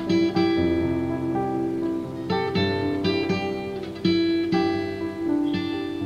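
Background music of acoustic guitar, plucked notes and chords ringing out one after another, with fresh strums about two and a half and four seconds in.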